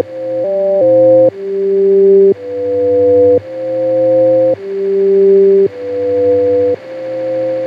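Ambient music: a slow sequence of held chords, each swelling up in volume and then cutting off, changing about once a second, over a faint steady hiss.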